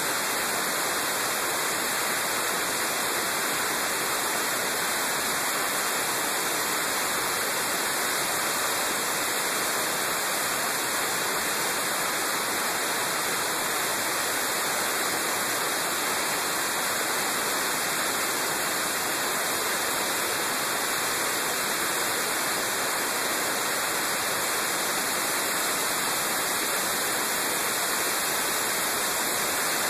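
Steady rushing hiss of wind over the microphone of a camera on a moving motorcycle, even and unchanging, with no engine note standing out.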